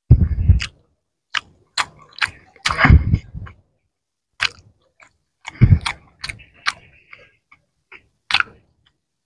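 Close-miked chewing of fried puti fish and rice: irregular wet mouth smacks and sharp clicks, with a few louder low thuds about three seconds apart.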